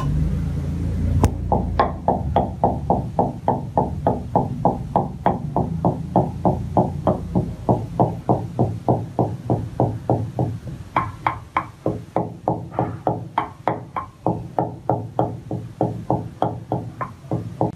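Wooden pestle pounding dry seeds in a clay mortar: a steady run of knocks, about three to four a second, starting about a second in.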